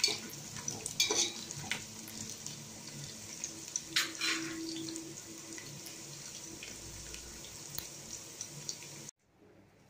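Sliced onions sizzling steadily in hot oil in a metal pot, with a few sharp knocks of a stirring spoon around one second and four seconds in. The sizzle cuts off suddenly about nine seconds in.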